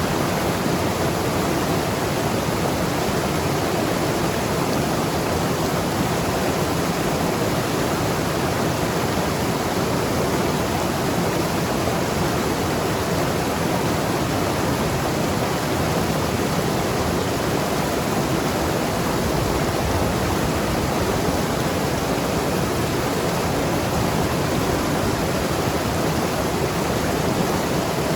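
Mountain river rushing over rocks, a steady, even flow of water noise.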